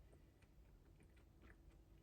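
Near silence with very faint chewing: a few soft, irregular mouth clicks over a faint steady hum.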